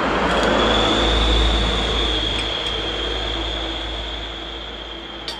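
A motor vehicle passing on the road close by: its rumble and tyre noise swell to a peak about a second in, then slowly fade away.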